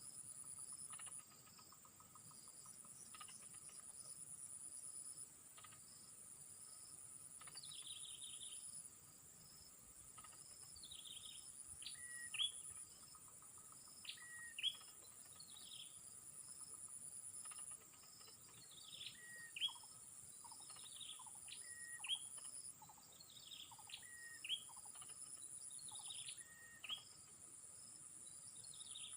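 Insects trilling in long, high-pitched spells that stop and restart every few seconds, with a bird calling over them in short downward-sweeping notes, repeated about every two seconds through the second half.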